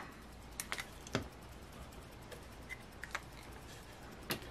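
A few faint, scattered light clicks and taps over quiet room tone, from a hand handling a scratch-off ticket and its scratching token on a wooden table. There is no steady scratching.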